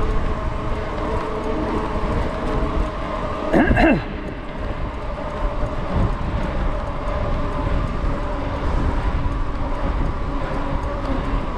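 Riding a bicycle on a tarmac path: steady wind buffeting on the microphone and a rumble from the tyres, with a faint steady whine underneath. About three and a half seconds in comes a brief, louder squeal that glides up and down in pitch.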